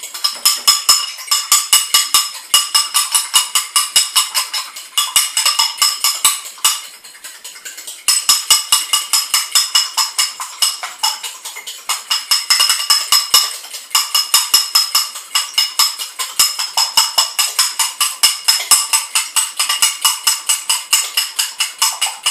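A fork beating an egg in a small ceramic bowl: a fast, even run of metal-on-china clinks that ring high. The beating pauses for about a second and a half midway, then resumes.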